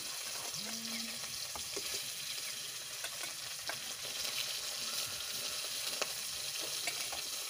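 Pieces of fish frying in hot oil in a wide kadai: a steady sizzle with scattered crackles as more pieces are slid in and turned with a spatula.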